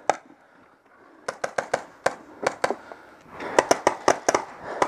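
Paintball markers firing in quick runs of sharp shots, several a second: one run about a second in and another dense run from about three and a half seconds, after a short lull.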